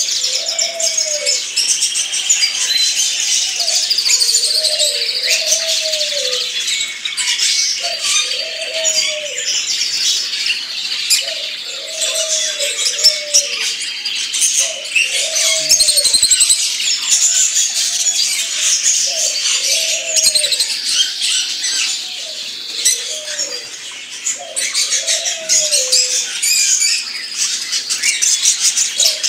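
Many small cage birds, zebra finches and budgerigars, chirping and chattering without a break. Under the chatter, a lower call repeats about every two seconds.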